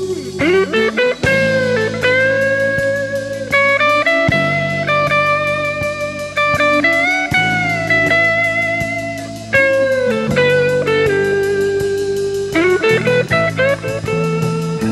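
Blues guitar solo: long sustained notes bent up and held over a band with bass and drums keeping an even beat.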